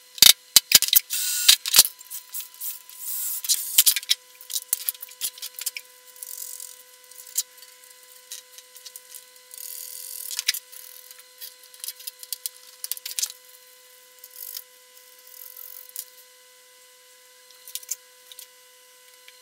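Small metal clicks, taps and scrapes of screws, nuts and a spanner being handled on an aluminium amplifier chassis while parts are fastened in, the sharpest clicks coming in quick succession in the first couple of seconds. A faint steady tone runs underneath.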